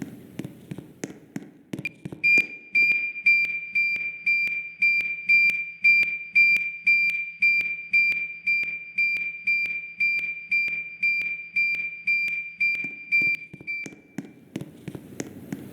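School fire alarm sounding a rapid train of bell-like chime strokes on one pitch, about two and a half a second, each ringing out briefly. The strokes start about two seconds in and stop shortly before the end.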